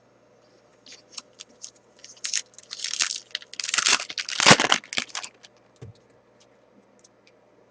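A trading-card pack wrapper being torn open and crinkled: a run of crackles and tearing rustles, loudest about three to five seconds in.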